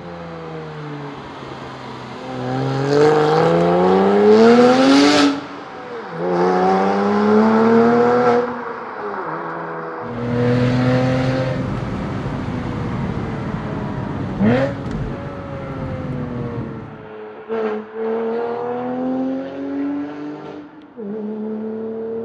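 Porsche Boxster S 987's 3.2-litre flat-six through a Capristo valvetronic exhaust, accelerating hard: the engine note climbs twice, dropping at each gear change. It then runs at steadier revs, with a couple of short sharp blips.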